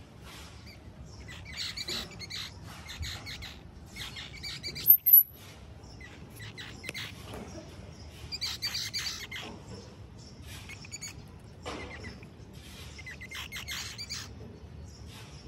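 Clusters of short, high chirps and rustles, coming and going, with one sharp, very high squeak about five seconds in that is the loudest sound.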